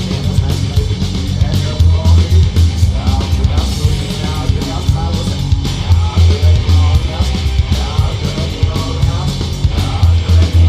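Loud hard rock song with heavy bass and a fast, driving drum beat, in a passage between sung lines.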